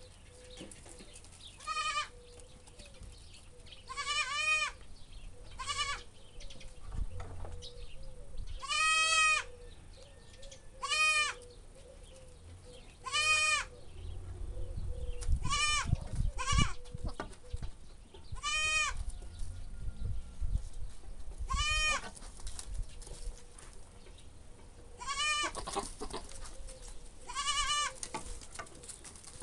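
Domestic goat bleating over and over, about fifteen short calls a couple of seconds apart, some in quick pairs, each rising and falling in pitch. This kind of repeated calling is typical of a doe in heat.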